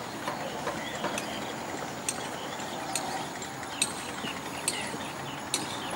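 Sharp knocks repeating at a steady rhythm, a little under one per second, over a background of outdoor river ambience.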